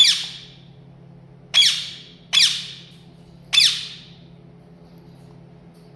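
Parrot giving four loud squawks in about four seconds, each call falling in pitch and trailing off in an echo.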